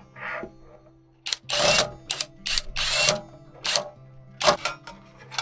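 Background music over a series of sharp clicks and knocks, with two louder, longer rasping noises about a second and a half and three seconds in.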